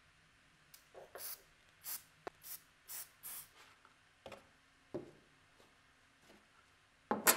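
Thin curved plywood strips scraping and knocking against a round MDF base as they are fitted into place: a quick run of short scrapes, then a few light knocks, and a louder sharp clack near the end.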